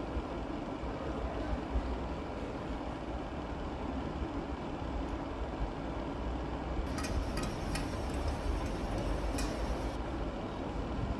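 Steady low background rumble. About two-thirds of the way through comes a short run of light clicks and rattles.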